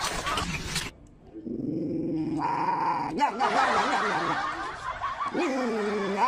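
A dog growling and grumbling in bending, drawn-out tones while a hand holds its muzzle. This follows a noisy first second that cuts off abruptly.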